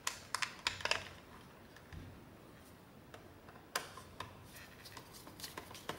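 Faint scattered clicks and taps of a screwdriver turning a screw into the plastic handle housing of a Dyson V11 cordless vacuum, with a sharper click a little under four seconds in.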